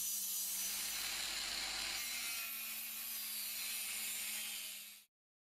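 Proxxon LHW long-neck angle grinder running with its disc working a workpiece: a steady abrasive hiss over a low, even motor hum, fading out about five seconds in.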